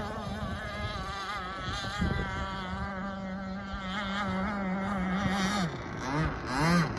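Enforcer Stingray RC hydroplane running at speed, its motor giving a steady high whine that wavers in pitch. Near the end the steady note drops out and breaks into a few short swelling pulses.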